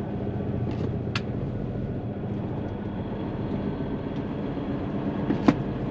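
Hino tractor unit's diesel engine and road noise heard inside the truck cab, a steady low drone. A sharp click about a second in and a louder one near the end.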